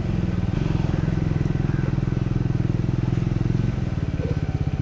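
Single-cylinder motorcycle engine running under way with an even, pulsing beat; a little before the end the throttle eases off and the individual firing pulses stand out more.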